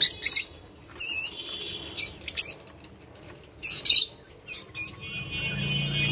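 Caged doves pecking seed from small paper feed cups: short, irregular dry rustles and clicks, about eight in all, with a faint high twittering in the background.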